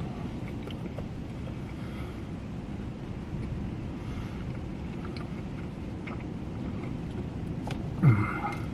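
Steady low rumble of a car idling, heard from inside the cabin, with a few faint small clicks. Near the end, a short loud sound falls sharply in pitch.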